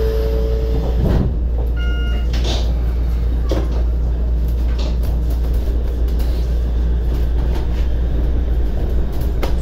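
Shonan Monorail 5000 series suspended train running, heard from inside the car: a steady, loud low rumble of the car in motion along its overhead track. A two-note hum fades out about a second in, and a brief electronic beep sounds about two seconds in.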